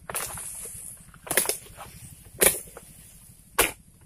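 A long-poled harvesting chisel is jabbed repeatedly into the stalks in an oil palm's crown. It lands four sharp chopping strikes about a second apart, with lighter knocks between them.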